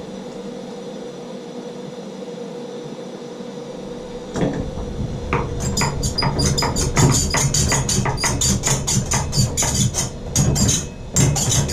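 A steady hiss, then from about four seconds in, rapid irregular sharp knocking and clattering, several strikes a second, like hand tools working on the metal valve body.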